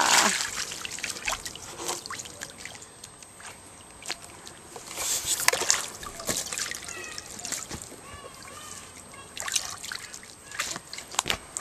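Water splashing and sloshing in a small inflatable paddling pool as a toddler thrashes in it, loud at first, then dying down to scattered small splashes and trickles, with a louder burst of splashing about five seconds in.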